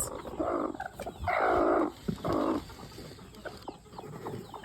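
Broody Ayam Cemani hen giving three harsh, raspy calls in a row, the middle one loudest, the sound a broody hen makes when disturbed on the nest. Faint rustling clicks follow.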